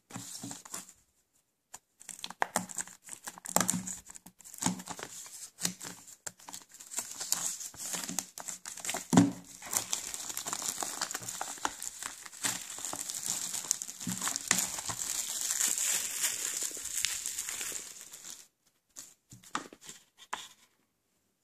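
Plastic shrink-wrap being torn and peeled off a Blu-ray case, crinkling and crackling. The crinkling thickens into a steady stretch in the middle and stops a few seconds before the end, leaving a few light clicks as the case is handled.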